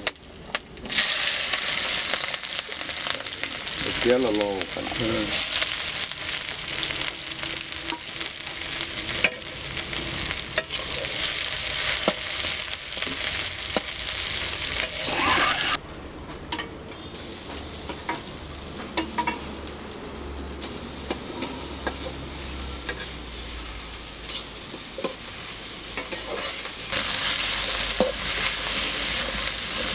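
Sliced garlic, onion and dried red chilies sizzling as they fry in oil in a steel wok, with a metal spatula stirring and scraping against the pan in frequent sharp clicks. The sizzle starts loud about a second in, dies down about halfway through and picks up again near the end.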